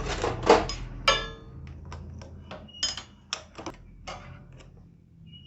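Metal hand tools clicking and clinking on a motorcycle engine as the gear lever and magneto cover are being undone: a few knocks at the start, one ringing metal clink about a second in, then scattered sharp clicks.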